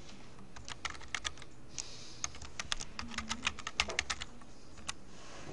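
Computer keyboard typing: an irregular run of quick keystrokes starting about half a second in and stopping shortly before the end.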